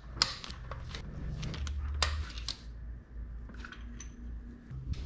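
Irregular metallic clicks and clinks of a long-handled socket wrench on the LS6 engine's rocker-arm bolts as the rockers are loosened and handled, over a low steady hum.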